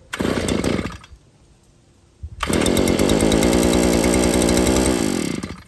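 Gas earth auger's small engine being recoil-started for the first time, choked and freshly primed: a brief burst of cranking that does not catch, then the engine fires and runs for about three seconds before it dies out near the end.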